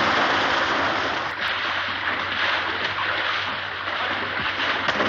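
Water rushing and splashing against rocks as a steady wash of noise, heard on an old film soundtrack with its dull, top-cut sound.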